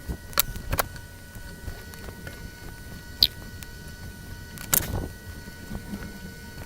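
Scattered clicks and knocks of tools and metal parts being handled while a stereo receiver's chassis is put back together, the sharpest click a little after three seconds in and a small clatter near five seconds.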